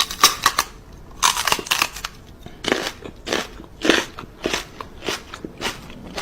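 Crunchy chewing: a steady run of loud crunches, roughly one every half second, as of something hard or crisp being bitten and chewed.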